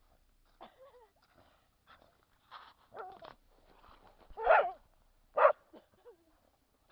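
Dog barking during play: several short barks, the loudest about four and a half and five and a half seconds in, with a couple of brief whines that fall in pitch.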